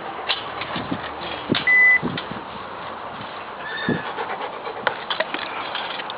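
Puppies moving about in a pen, with scuffling and clicking of paws throughout. A short, steady, high-pitched whine comes just under two seconds in, and a fainter one near four seconds.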